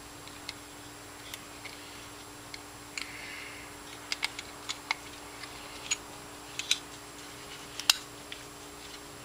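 Irregular small clicks and taps of parts being handled as the block is worked back into the frame of a Smith & Wesson M&P pistol, with a cluster about halfway through and the sharpest click near the end, over a faint steady hum.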